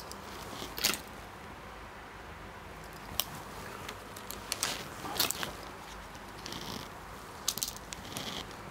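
Garments and plastic clothes hangers being handled: scattered sharp clicks and short rustles as tops are picked up from a pile.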